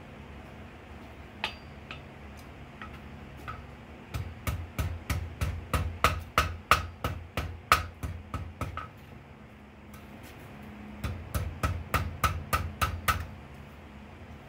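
Ball-peen hammer striking red-hot steel held in tongs on an anvil, forging the ring of a bottle opener: a single blow, a few light taps, then two runs of quick blows at about four a second with a short pause between.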